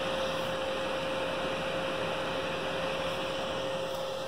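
Desktop computer fans running steadily while the CPU is under a stress test: an even whir with a constant hum tone.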